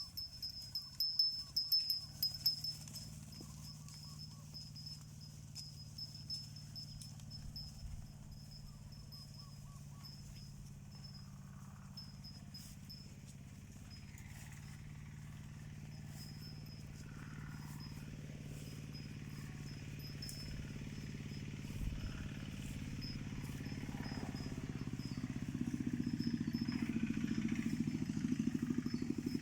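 An engine running steadily, growing louder over the last few seconds, with a thin high steady trill above it.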